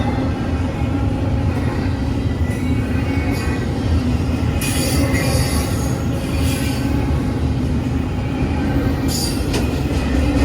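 Freight train rolling through a grade crossing: a steady low rumble of railcars and wheels on the rail, with shrill wheel squeals breaking out about halfway through, again a second later, and near the end.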